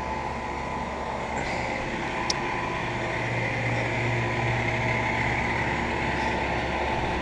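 Central air conditioner outdoor condenser units running: a steady low compressor hum under the rush of the condenser fan. A single short tick sounds about two seconds in.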